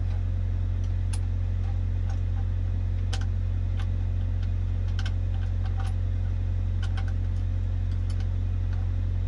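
Truck's diesel engine idling with a steady low hum, heard inside the cab, with scattered small clicks and taps from handling the CB radio parts and wiring.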